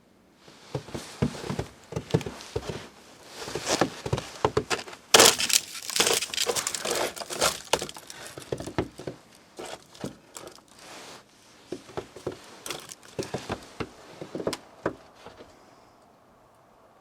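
Irregular crunching and crackling with many sharp clicks, densest and loudest about five to eight seconds in, thinning out near the end.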